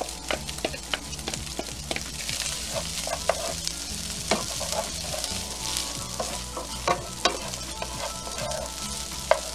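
Rice sizzling in hot olive oil in a frying pan as it is stirred with a spatula, with scattered clicks of the spatula against the pan. The grains are being coated and warmed in the oil, the first stage of making risotto.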